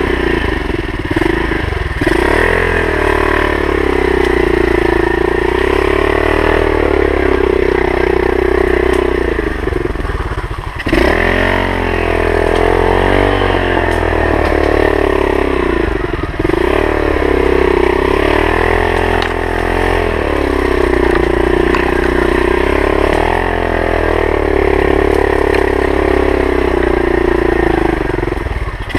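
Pit bike's single-cylinder four-stroke engine, heard from the rider's helmet while riding a woodland trail. Its pitch rises and falls with the throttle and drops off briefly about 2, 11, 16 and 24 seconds in before climbing again.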